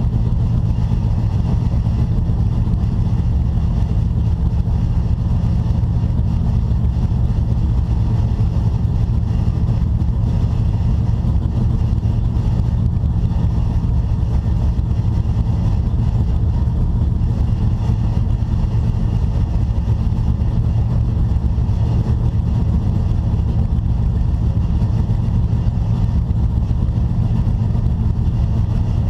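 Race car engine running loud and steady at an unchanging pitch, with no revving up or down.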